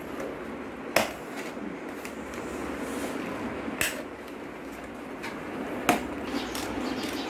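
Scissors cutting through stiff 300 gsm mount board: three sharp snips, about two to three seconds apart, with fainter clicks of the blades and card between, over steady background noise.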